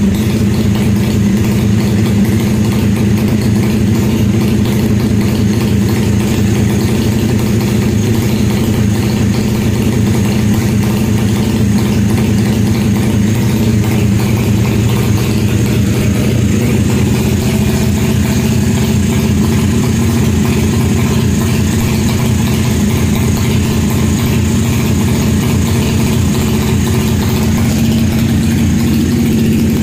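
Drag-race motorcycle engine running steadily on its stand, at an even pitch and level without revving.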